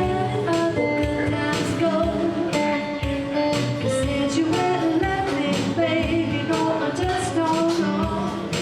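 A guitar strummed in a steady rhythm under a singing voice: a live song.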